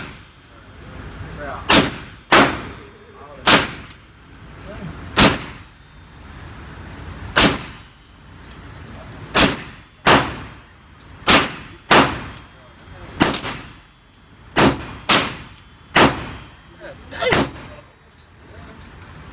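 Gunshots from a firearm at a shooting range: about fourteen single shots fired one at a time at an uneven pace, each followed by a short echoing tail.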